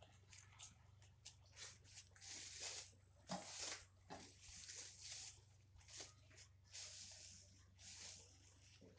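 Clear plastic wrapping crinkling and rustling faintly in many short bursts as it is pulled off and bunched up by hand.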